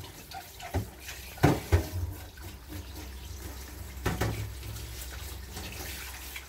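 Kitchen tap water running into a sink, with a few sharp knocks, the loudest about a second and a half in. A steady low hum starts just under a second in.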